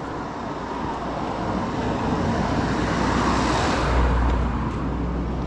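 A car passing by on a road: its tyre and engine noise builds to its loudest about three to four seconds in, then fades.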